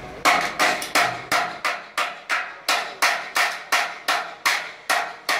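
Hammer blows on metal in a steady rhythm, about three a second, each with a short ringing decay.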